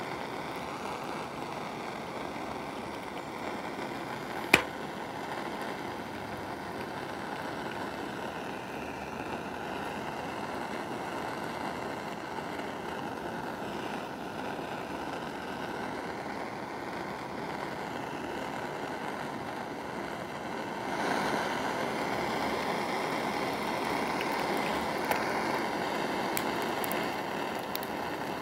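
Handheld butane gas torch (Sakae Fuji Ace Torch) burning with a steady hiss as its flame plays on an egg's shell, getting louder about three quarters of the way through. A single sharp crack about four and a half seconds in is the loudest sound.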